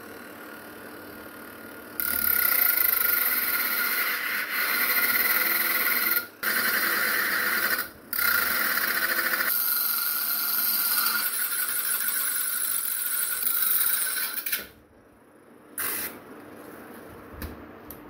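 Homemade angle grinder, a 12 V 775 DC motor driving a small abrasive cut-off disc, running and then cutting through a thin iron rod. A loud grinding screech starts about two seconds in, breaks off twice briefly, and stops sharply near the end.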